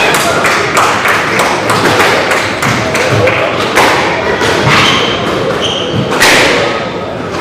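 Squash rally: the ball struck by rackets and smacking off the court walls in quick, irregular succession, with brief shoe squeaks on the wooden floor. A louder hit comes about six seconds in.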